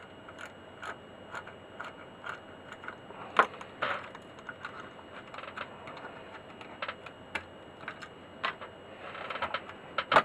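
Light clicks and taps of small tools and instrument parts being handled, about two a second, with one louder knock about three and a half seconds in and a short scrape near the end.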